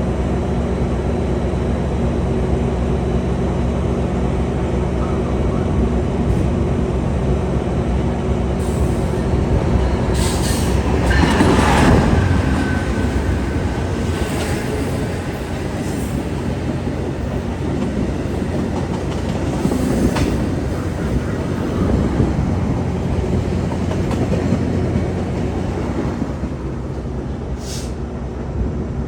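Via Rail P42DC diesel locomotive's engine running steadily with its passenger train, loudest about eleven or twelve seconds in, with a few wheel clicks over the rails and a brief thin squeal just after the loudest point.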